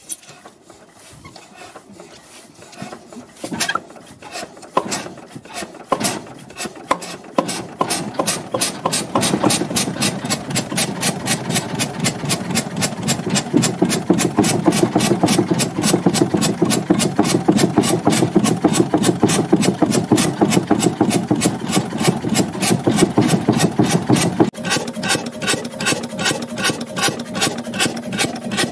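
Old Deutz horizontal stationary engine turned over by hand with a few scattered clicks and knocks, then catching about six seconds in and settling into a steady, even beat of about four strokes a second.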